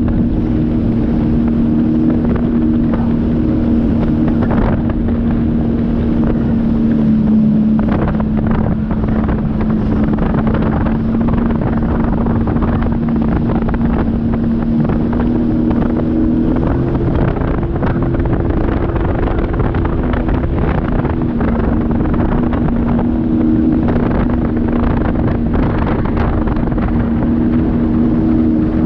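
Sea-Doo personal watercraft engine running steadily under way, its note shifting a little partway through, with wind noise on the microphone and water spray rushing.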